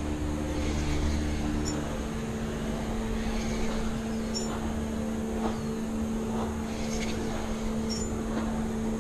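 Steady low hum of a boat motor running over a broad hiss of water and air, its pitch shifting down a step about two seconds in.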